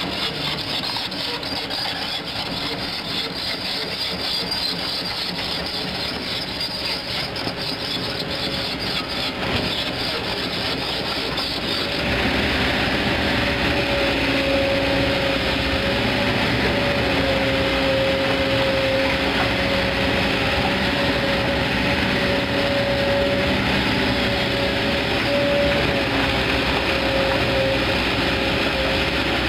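Kobelco SK200 excavator's diesel engine running as the machine swings and digs. About twelve seconds in the sound steps up louder and a steady high whine comes in and holds.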